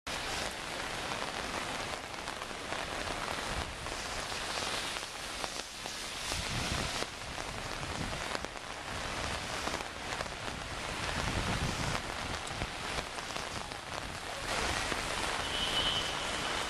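Steady rain hiss falling on wet pavement, with occasional low rumbles swelling in and out and a brief high steady tone near the end.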